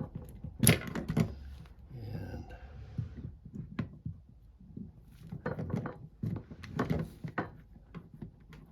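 Hands working on a small plastic turn signal switch assembly: scattered clicks, taps and knocks as the wires are worked out of their connector.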